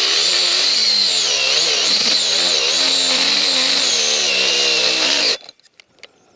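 Cordless angle grinder cutting through metal with a cutting disc: a loud, steady high whine whose pitch wavers as the disc bites. It cuts off suddenly about five seconds in, with the battery running low.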